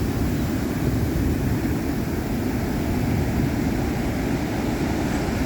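Ocean surf washing steadily, a continuous low rumble with no distinct breaks.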